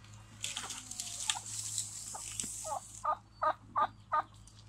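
A chicken clucking five times in a quick, even run, about two or three calls a second, near the end. Before it comes a second or two of rustling hiss.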